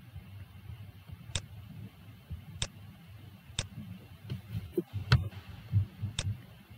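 Scattered single clicks of a computer mouse and keyboard, about six in all at irregular intervals, over a faint low hum.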